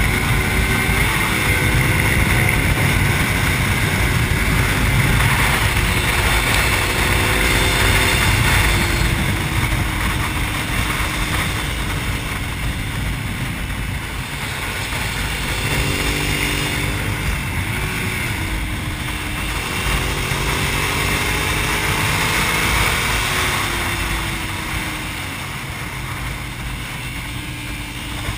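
Suzuki SV650's V-twin engine at track speed, its pitch climbing and falling several times as the rider accelerates, shifts and rolls off through the corners, under a steady rush of wind noise.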